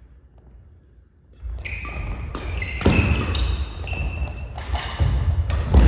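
Badminton doubles rally on a wooden gym floor: rackets hitting the shuttlecock, shoes squeaking sharply and footfalls thudding. It starts about a second and a half in.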